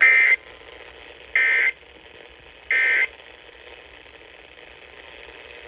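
EAS End of Message signal: three short bursts of SAME digital data tones, a harsh buzzing two-tone modem sound, each about a third of a second long and spaced about 1.3 seconds apart. They mark the end of the emergency alert.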